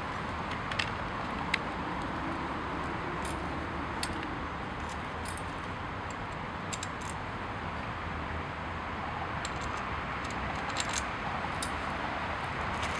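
Steel wire tines on a handmade wooden rake clicking and ticking lightly against the wood and each other as they are handled and adjusted, a few irregular clicks every couple of seconds, over a steady background hiss.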